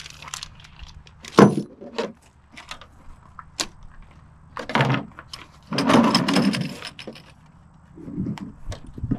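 Hands working with small metal bike-rack hardware: scattered clinks and clicks, a sharp knock about a second and a half in, and two longer rustling, scraping bursts in the middle. Near the end a hard plastic tool case is picked up and handled.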